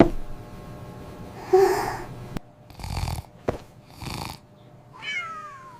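Cartoon kitten snoring: three raspy snores a little over a second apart, with a few sharp clicks between them, and a falling whistle-like tone near the end.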